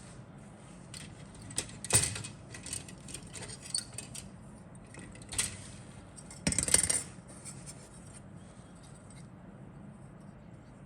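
Hard plastic model-kit parts clicking and clattering as they are handled. There are sharp clicks about two seconds in and about five seconds in, and a short burst of clatter around the middle. It settles to faint handling noise near the end.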